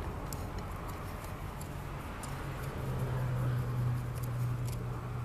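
A low, steady engine-like hum that grows louder about halfway through, with a few light, sharp clicks over it.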